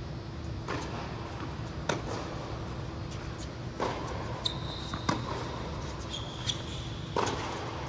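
Tennis ball knocked back and forth in an indoor rally: about five sharp racket strikes and court bounces a second or two apart, over a steady hall hum. Two short high squeaks a little past the middle, from sneakers on the hard court.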